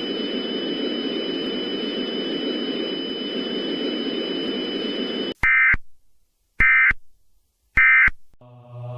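Steady static hiss with a thin high whine running through it, cutting off about five seconds in. Then three short, loud EAS end-of-message data bursts, the screechy digital SAME tones, about a second apart, which mark the end of the alert.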